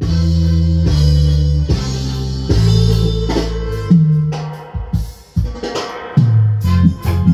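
Music with guitar, bass and drums played through a pair of 15-inch mid-low speakers with tweeters, driven by one channel of a dB Voice SH-1100 power amplifier in a sound test. Heavy sustained bass notes, with a brief drop in loudness about five seconds in.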